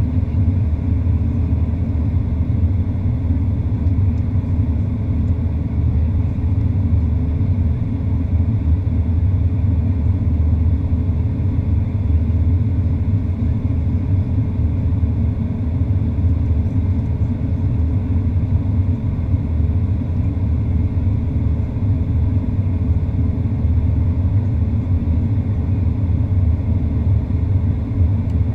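Boeing 737-800 cabin noise at a window seat on descent: a steady low rumble of airflow and the CFM56-7B engines, with a faint steady hum above it.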